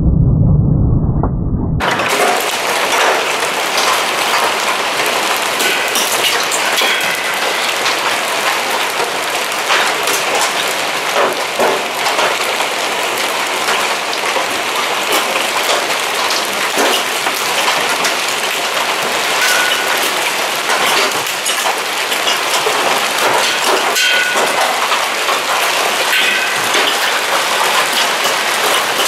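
Hailstones pelting down: a dense, steady patter of countless sharp impacts. For about the first two seconds only a low, muffled rumble is heard, then it cuts suddenly to the full, crisp clatter.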